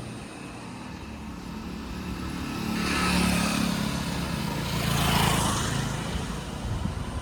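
Motor vehicles passing close by, one after another. Their engine and road noise swells and fades twice, loudest about three and five seconds in.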